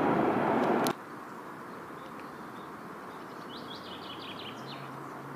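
An approaching electric commuter train running loud, cut off abruptly just under a second in. After that, quiet outdoor background with a brief cluster of bird chirps and a low steady hum starting near the end.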